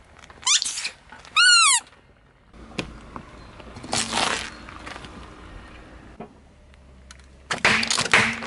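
A squeaky rubber toy squeals twice, each squeal rising and falling in pitch, as a car tyre squashes it. About four seconds in comes a short crunch as the tyre rolls onto something small, and near the end a louder burst of cracking and squelching as plastic pudding cups are crushed and split.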